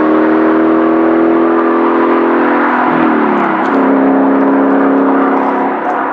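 Sports car engine under hard acceleration pulling away, its pitch climbing slowly, then dropping with an upshift about three seconds in before it pulls again. The sound fades near the end as the car gets farther off.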